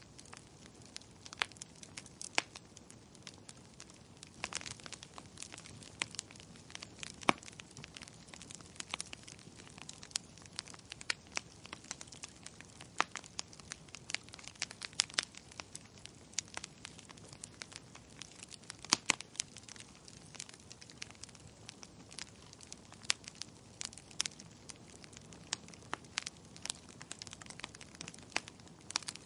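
Fire burning in a fireplace, crackling with frequent sharp pops at irregular intervals over a faint steady hiss.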